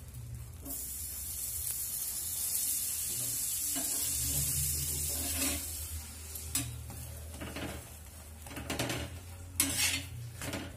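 A kulcha frying in butter on a tawa, sizzling steadily for several seconds. In the second half a steel spatula scrapes and clicks against the tawa as the kulcha is lifted and flipped.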